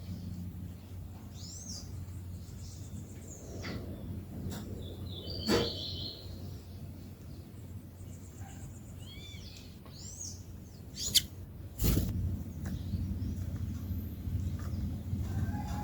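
Songbirds giving scattered short, high chirps, with a quick run of repeated notes about five seconds in. A few sharp knocks stand out about three-quarters of the way through, over a steady low hum.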